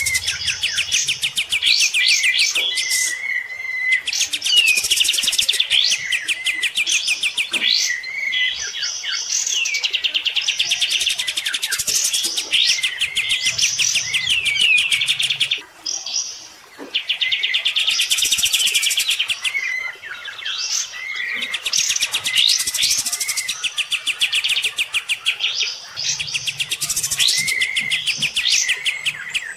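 Caged kapas tembak, a bulbul, singing a long, fast stream of rapidly repeated high chattering notes mixed with short whistles, breaking off briefly about halfway through.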